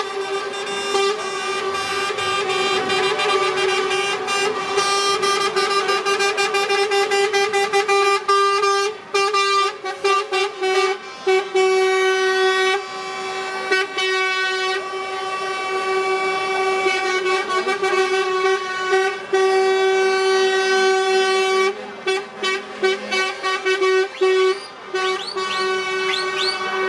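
Truck air horns blaring in long held blasts, broken twice into runs of short rapid toots.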